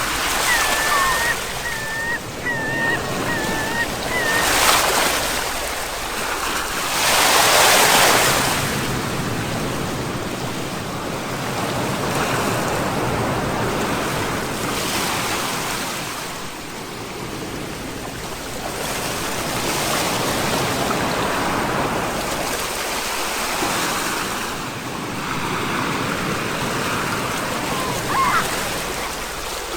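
Sea waves breaking and washing ashore in a continuous surf that swells and ebbs, with the biggest surge about seven seconds in. A short series of high chirps sounds over it in the first few seconds.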